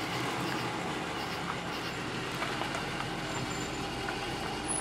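Car engine idling steadily, a low even rumble under a hiss, with a few faint ticks.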